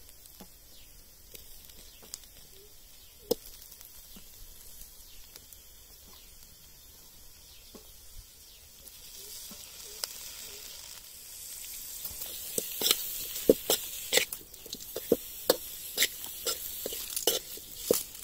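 Dry fish (vala karuvadu) with sliced onions and green chillies frying in an aluminium kadai, a sizzling hiss that builds from about nine seconds in, with sharp crackles and pops from about twelve seconds.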